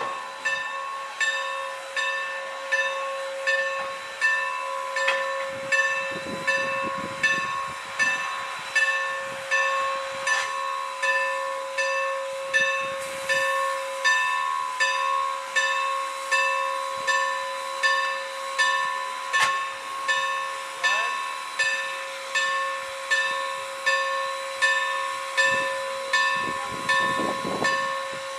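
Standing steam locomotive with steam up: a steady whine and hiss of steam with an even rhythmic pulse, about three beats every two seconds, typical of the steam-driven air pump working.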